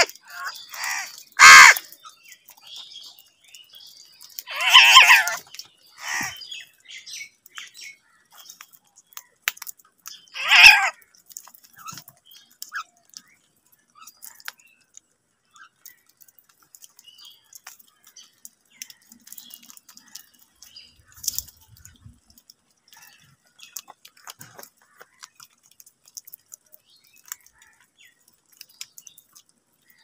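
House crows cawing: several loud caws in the first eleven seconds, one drawn out for about a second, then quieter, with many faint taps of beaks pecking at food on concrete and in a plastic bowl.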